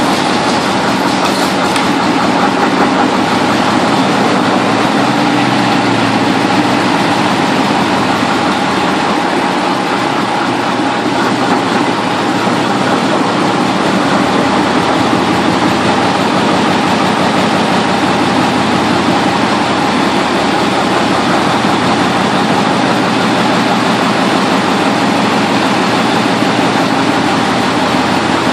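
Gardner 8L3 straight-eight diesel engine running steadily, a dense, even rapid beat of firing strokes with no change in speed.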